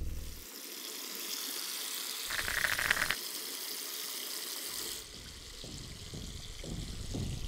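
Water running from a tap into a bathroom sink, a steady hiss that drops lower and quieter about five seconds in.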